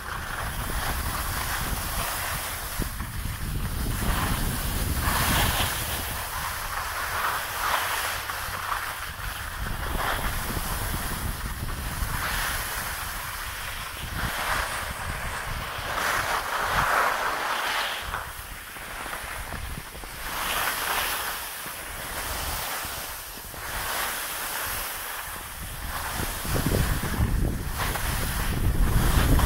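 Wind buffeting the microphone of a camera carried by a moving skier, under the scraping of skis on packed snow, which swells and fades every second or two with the turns.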